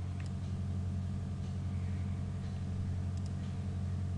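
Steady low hum in the background of a desk recording, with a few faint clicks.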